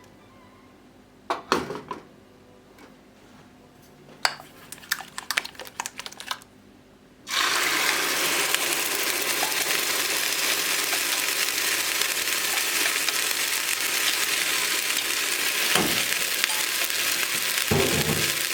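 A few light clinks of utensils, then steady sizzling of food frying in a pan, starting suddenly about seven seconds in.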